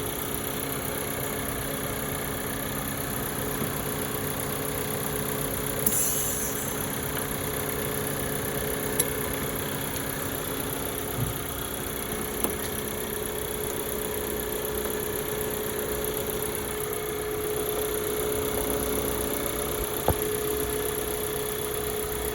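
2019 Audi A4 engine idling steadily. A brief hiss with a click about six seconds in and a few sharp clicks later come from the A/C manifold-gauge couplers being unhooked from the low- and high-side service ports.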